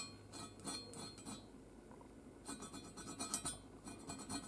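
Small hand file rasping in short, faint strokes across the aluminium sealing face of a Polaris SLT780 crankcase half, filing down a burr that stands proud of the surface. The strokes pause for about a second midway.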